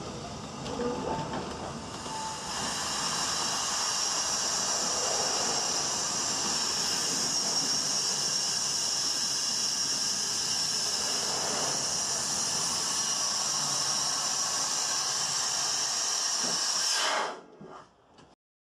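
Steam hissing steadily from the steam railmotor's vertical boiler, rising in after a couple of seconds of quieter carriage rumble and cutting off sharply near the end.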